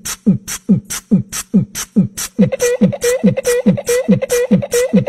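A fast, even drum beat: a falling kick-drum thump and a hissing hi-hat, about two and a half beats a second. From about halfway a short buzzing note sounds on each beat.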